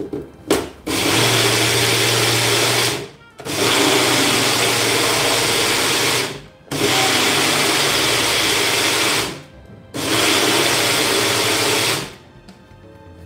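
Bullet-style personal blender pulsed four times, the motor running about two to three seconds each time with short pauses between, churning curd, pineapple and water into buttermilk. A brief knock comes just before the first run as the cup is seated.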